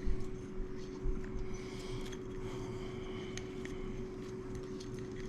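A steel bolt being turned into a freshly drilled hole in a metal grab bar so that it cuts its own threads, used in place of a tap, with scattered metal clicks and faint squeaks over a steady hum.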